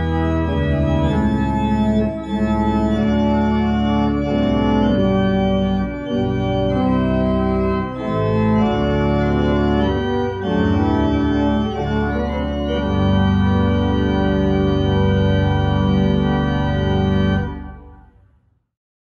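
Church organ playing a series of sustained chords on manuals and pedals. It stops near the end, and the last chord fades away over about a second.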